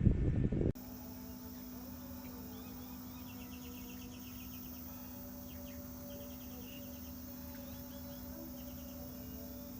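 A loud rumbling noise cuts off abruptly under a second in. A quiet steady hum follows, with insects chirping in short rapid trills several times.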